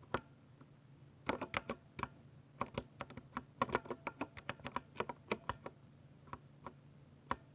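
Typing on a Ducky 60% mechanical keyboard with silver switches: one keystroke at the start, then a fast run of clacking keystrokes for about four seconds, tailing off into a few single presses near the end.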